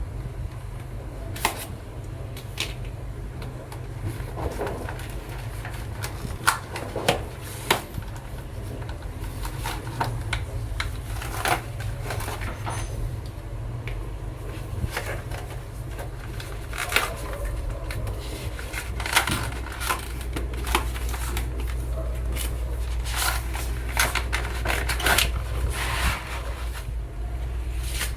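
Hands handling the screen protector kit and its packaging: scattered clicks, taps and rustles over a steady low hum.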